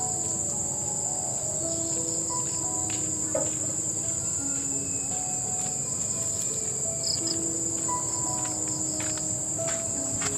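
Insects calling in chorus: a steady, shrill high-pitched drone. Faint short notes at shifting lower pitches sound beneath it.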